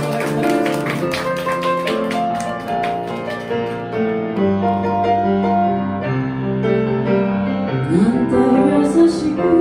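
Live solo piano interlude in a slow chanson ballad, chords and melody notes ringing out. Near the end a woman's singing voice comes in with a wavering, gliding line over the piano.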